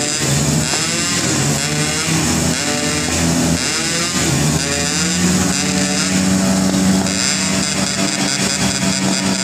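Motorcycle engines revving, the pitch repeatedly rising and falling, with one engine held at steady high revs for a couple of seconds past the middle.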